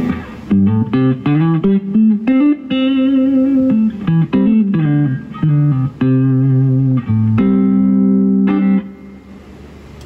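Stratocaster electric guitar played through a Laney LF60-112 Lionheart Foundry 1x12 valve combo amp on its clean channel, with the boost switched on and the reverb turned up. The guitar plays a phrase of picked notes and chords, ending on a chord held for about a second and a half before it is damped.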